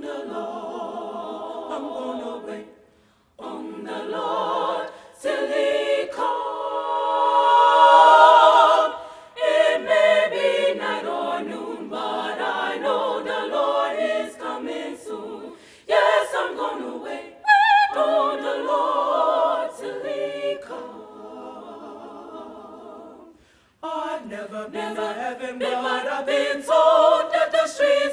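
Young women's school choir singing a cappella in phrases of held chords, with brief pauses between phrases. About six to nine seconds in, a long chord swells to the loudest point.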